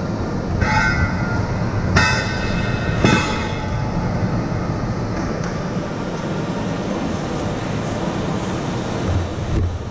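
Electric go-karts running on an indoor track: a steady rumble, with three short high squeals about 1, 2 and 3 seconds in.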